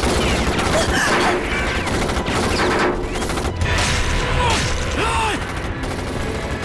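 Dense gunfire in a film battle: rapid automatic shots and bullets striking the ground, with a few short gliding tones among the shots.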